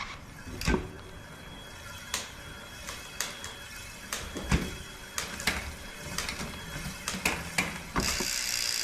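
E-bike drivetrain being test-shifted in a bike stand after a rear derailleur adjustment: the chain running over the cassette, with irregular sharp clicks from the shifter and the chain moving between cogs. A steady hiss comes in near the end.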